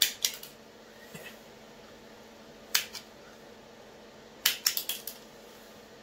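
Hand wire stripper snapping shut on electrical wire: sharp clicks at the start, two more near the middle, and a quick run of about five near the end.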